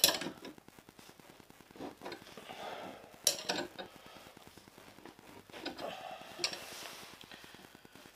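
Steel hand tools clinking and rattling as a spanner and a bearing puller are handled and fitted to a motorcycle steering stem: a sharp clink at the very start, then short bursts of clinking about two, three and a half and six seconds in.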